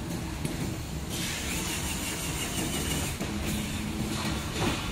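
Cordless electric drill running steadily, driving the threaded column of a plastic adjustable pedestal to unscrew it. A harsher hiss joins about a second in.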